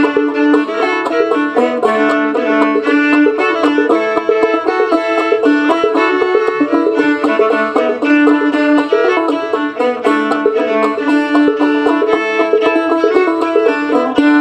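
Homemade calfskin-headed clawhammer banjo and fiddle playing an old-time instrumental break: a quick, even plucked banjo rhythm under longer held fiddle notes.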